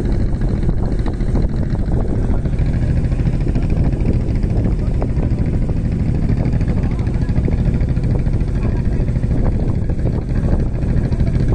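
Steady low rumble of a vehicle under way off-road: engine and driving noise, unbroken and without clear changes in pitch.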